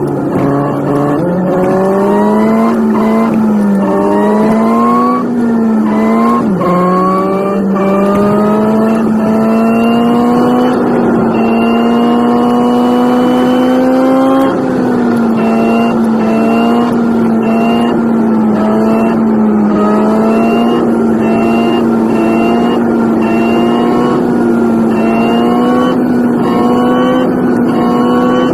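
Nissan 180SX's engine running under way, loud and continuous, its pitch climbing and then dropping back again and again every second or two.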